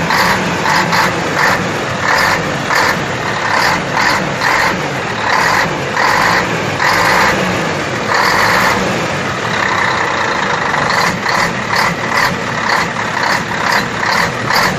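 Scania K113 TL bus's 11-litre inline-six diesel engine running loud, its sound surging and easing in a rhythmic pulse one to three times a second.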